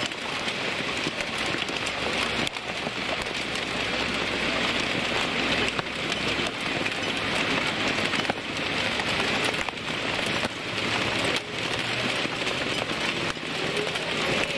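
Torrential rain driven by strong wind, a dense steady hiss with scattered sharper hits. A low rumble runs under it for the first few seconds.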